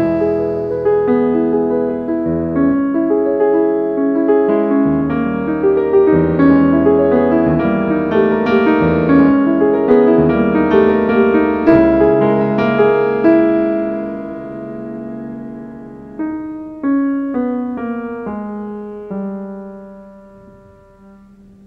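Piano music playing chords and a melody, which thins to a few single notes and fades out near the end.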